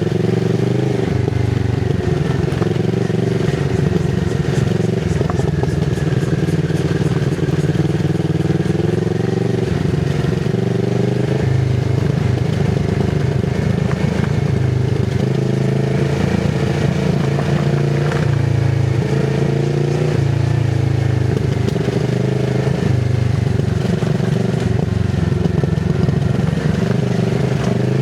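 Kawasaki Z650RS 649 cc parallel-twin engine running through an IXIL MK2 full exhaust with its dB killer fitted, ridden at low revs. The engine note rises and falls gently with the throttle.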